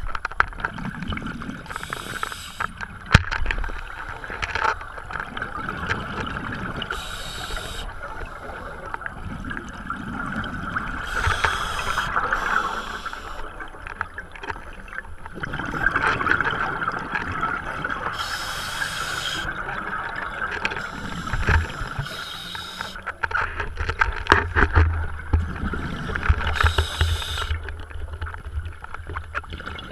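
Scuba divers breathing through regulators underwater. Each breath gives a short hiss and then a burst of bubbling, about every four to five seconds. There are a few sharp knocks.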